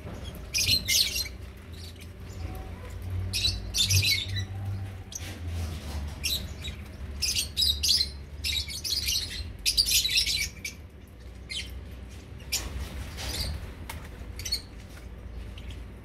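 A flock of lovebirds chattering, with clusters of shrill high chirps coming every second or so over a steady low rumble.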